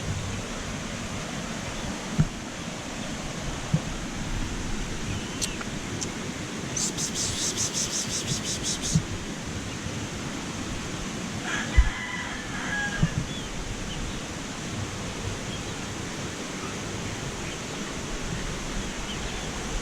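Chickens calling, with one short call about twelve seconds in, over a steady rushing hiss. A rapid high trill runs for about two seconds near the middle.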